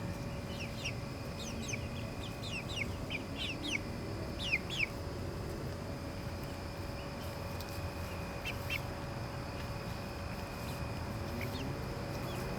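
Backyard chickens peeping: short, high, steeply falling calls come in clusters, thickest in the first few seconds and again briefly past the middle.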